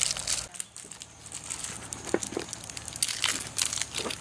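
KitKat chocolate bar wrapper and its inner foil being torn open and crinkled by hand: repeated crackly rustles, with a short lull about half a second in.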